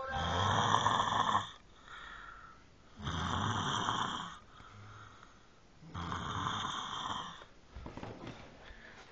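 A sleeping person snoring heavily after drinking. Three long, rough snores come about three seconds apart, with a quieter breath between each.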